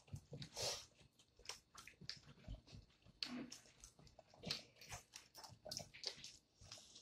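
Boiled peanuts being shelled and eaten: faint, irregular small clicks and cracks of soft shells being split and picked from a bowl, mixed with chewing.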